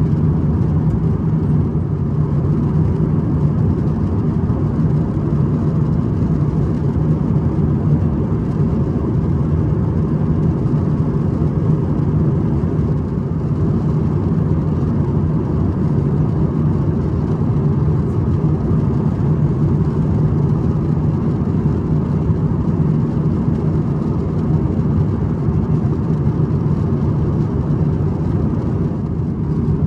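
Steady low drone inside the cabin of an Airbus A350-1000 in flight: engine and airflow noise.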